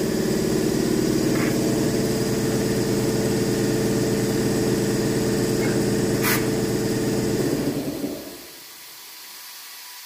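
An electric motor at the tire changer runs with a steady hum, then winds down and stops about eight seconds in. A single sharp click comes a little before it stops.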